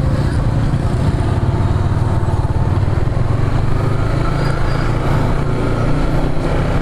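Motorcycle engine running steadily, with a constant low drone.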